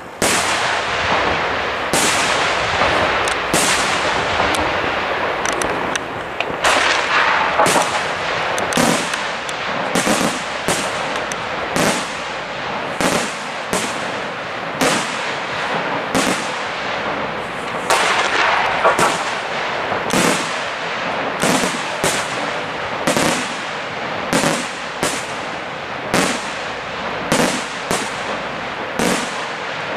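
Aerial firework shells bursting in quick succession, sharp reports coming about one a second or faster, over a continuous noisy wash between them.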